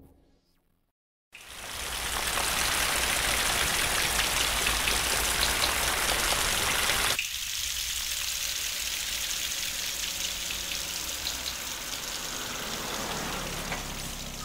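Steady rain falling, starting sharply after about a second of silence, then dropping to a softer level about halfway through.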